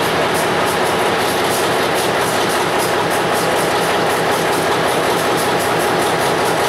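EMD diesel switcher locomotive running steadily with its train of rail cars moving on the track. A thin, steady whine sits above the engine and rail noise.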